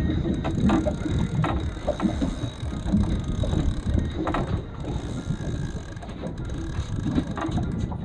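Fishing reel clicking and grinding as a fish is played on the rod, with irregular clicks over a steady low rumble.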